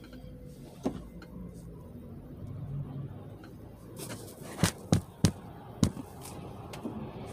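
A low outdoor rumble with a series of sharp, short pops or knocks: one about a second in, then four more close together about four to six seconds in.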